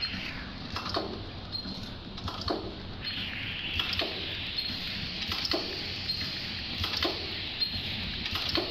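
Automatic teabag packing machine running, with a sharp clack repeating about every second and a half as it forms, fills and seals each bag. Fainter clicks fall between, over a steady mechanical hiss and hum.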